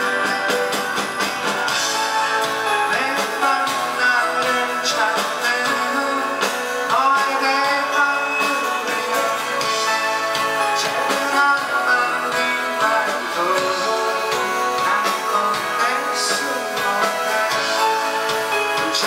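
A band playing a song live, with guitars and a sung vocal line over them.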